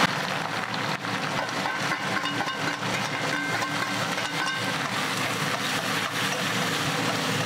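Chopped onions sizzling steadily in hot oil in a metal kadhai, with a ladle stirring and scraping through them.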